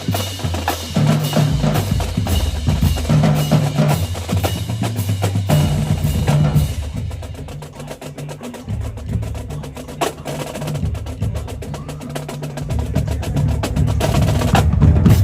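Marching drumline playing: snare drums over tuned bass drums sounding distinct low pitched notes. About halfway through it drops to a quieter passage of rapid light strokes, then builds back up loud near the end.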